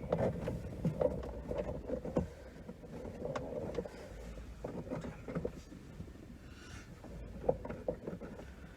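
Hands working at a car's plastic centre-console trim and shift boot: irregular clicks, knocks and rubbing, with one sharper knock near the end.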